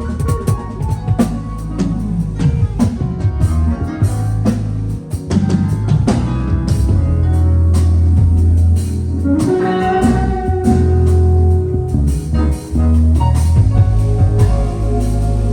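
Live band playing an instrumental during a sound check: drum kit strokes throughout, a bass guitar holding deep sustained notes, and a guitar line above.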